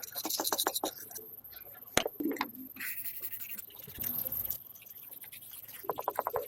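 Hand scrubbing and scraping in quick strokes, with trains of clicks and one sharp knock about two seconds in.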